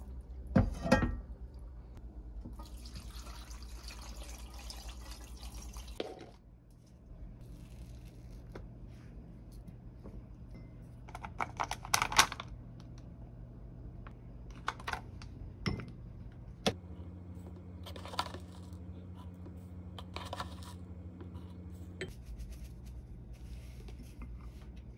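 Kitchen food-prep handling sounds: kimchi and its juice sliding from a plastic container into a pan, a loud crinkly rustle midway as a gochujang tub's plastic film is peeled back, and scattered clicks and taps of a spoon in a bowl, over a steady low hum.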